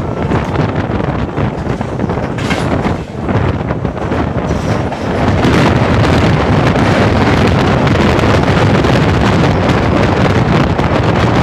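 Passenger train running at speed, heard from an open door with heavy wind buffeting the microphone. About five seconds in the train enters a tunnel and the noise grows louder and steadier.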